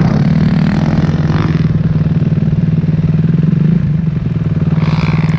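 450cc four-stroke single-cylinder dirt bike engine running under throttle at a steady pitch, rising slightly and then easing off just before four seconds in.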